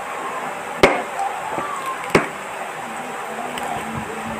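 Metal fork and spoon striking a plate twice, two sharp clinks about a second and a half apart, over a steady background hiss.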